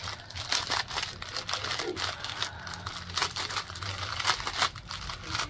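Clear plastic packaging around bags of square diamond-painting drills crinkling in irregular crackles as hands handle it and work it open.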